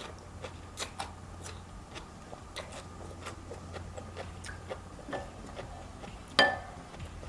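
Mouth and utensil sounds of eating noodle soup: soft, irregular little clicks of chewing and utensils touching the bowl, with one louder, ringing clink of a utensil against the bowl about six and a half seconds in.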